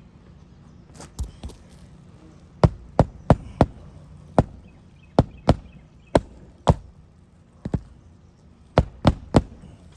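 Sharp hammer blows driving roofing nails through an asphalt shingle while a replacement shingle is fastened down. There are about fifteen irregular strikes, some in quick runs of two or three.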